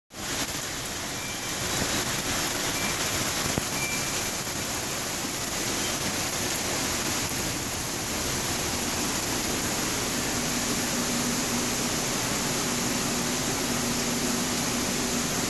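Heavy rain pouring down in a steady, dense hiss. A faint low hum joins about two-thirds of the way through.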